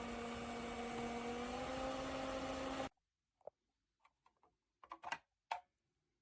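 Small battery-powered portable evaporative cooling fan running: a steady motor hum and whir with its pitch creeping slightly up, which stops abruptly about three seconds in. A few faint clicks follow.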